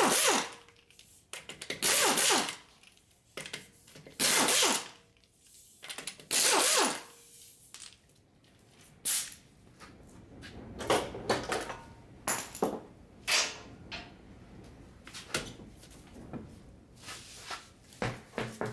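Impact wrench rattling in four short bursts, about two seconds apart, breaking loose the front wheel's lug bolts. After that come scattered clinks and knocks as the loosened bolts and the wheel come off.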